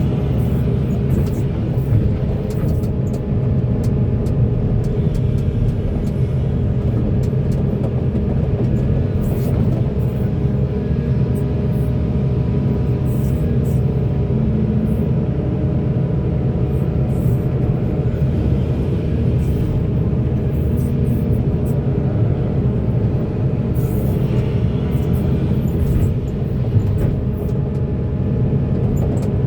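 Heavy mining excavator's diesel engine running steadily under load: a constant deep drone with scattered light clicks and knocks over it.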